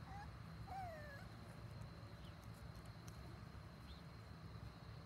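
Faint whines from six-week-old schnoodle puppies: a couple of short calls in the first second or so, the longer one sliding down in pitch, with a few fainter chirps later, over a low rumble.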